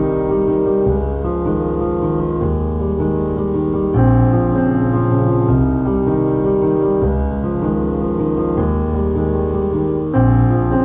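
Background piano music: slow, held chords that change every couple of seconds.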